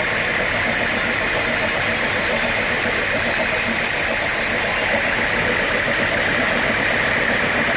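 Sawmill machinery running steadily with an engine-like drone. The highest hiss drops away about five seconds in.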